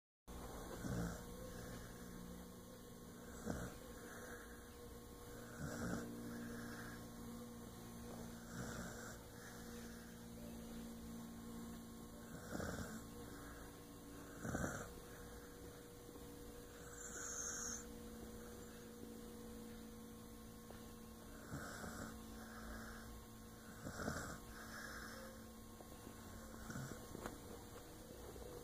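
Snoring, a soft snore every two to three seconds, over a steady electrical hum.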